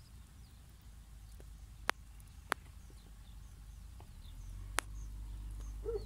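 Faint bird chirps outdoors, broken by a few sharp clicks, over a low rumble that grows louder about four seconds in.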